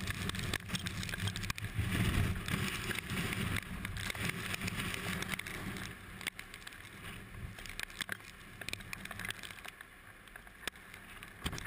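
Strong tornado winds buffeting the microphone: a low rumble with scattered sharp ticks, easing after about six seconds.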